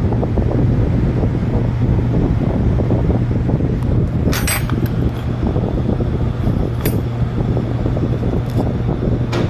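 Steady low hum with a rough rumble, broken by short sharp clicks about halfway through, again a couple of seconds later, and near the end.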